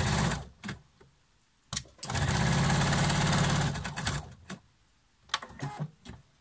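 Electric sewing machine stitching a seam in short runs: a brief burst at the start, then a steady run of about two seconds with an even, rapid stitching rhythm. A few light clicks fall in the pauses.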